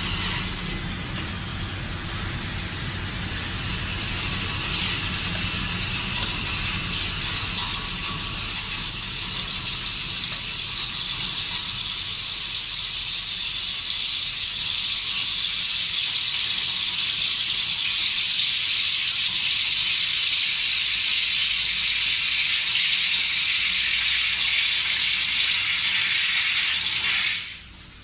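Industrial machine running with a loud, steady hiss that stops suddenly about a second before the end.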